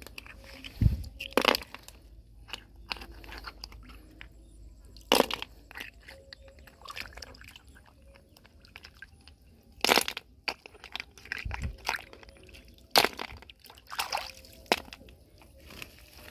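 Hand sloshing in shallow muddy water while freshwater snail shells are picked up, with a series of sharp clicks and knocks as the shells strike one another and land in a wicker basket.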